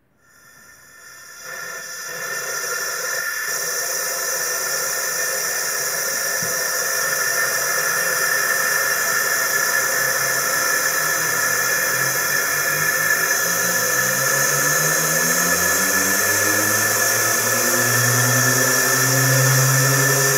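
Compressed-air Tesla turbine with lexan disc blades running up to speed: a loud rush of air with a steady high whine that swells in over the first two seconds, joined in the last several seconds by a low hum that slowly rises in pitch.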